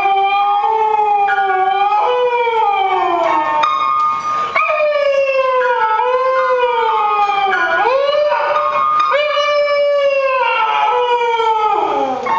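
A dog howling a string of long, wavering, mostly falling howls while standing on an upright piano's keys. Steady piano notes sound beneath the howls.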